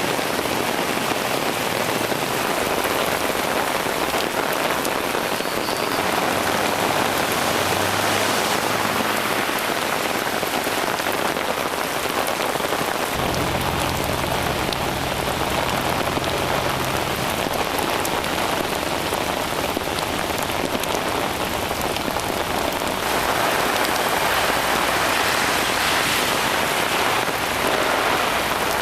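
Heavy tropical-storm rain falling steadily, a dense even hiss of downpour. A low rumble joins about halfway through.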